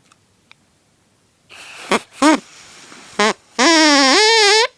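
Homemade drinking-straw reed horn being blown: a few short squawks, then a loud, buzzy honk of about a second near the end that wavers and rises in pitch.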